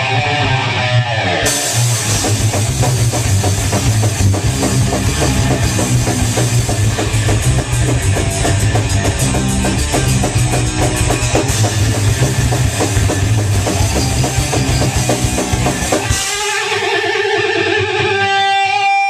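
Loud crossover thrash band playing: pounding drum kit with distorted electric guitar and bass. About sixteen seconds in, the drums and bass stop and a lone guitar rings on with a few held notes.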